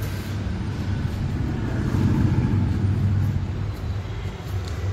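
Steady low electric-motor hum with a noisy rush over it, a little louder around two seconds in, as from a belt grinder running.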